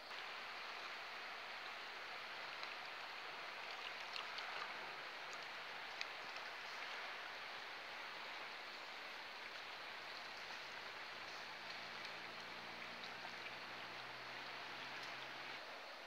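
Steady rush of flowing river water, an even hiss with a few faint clicks and taps.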